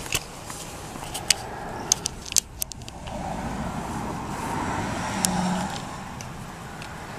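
A motor vehicle passing on a nearby road, swelling up about three seconds in and fading again. It is preceded by a few sharp clicks and taps close to the microphone.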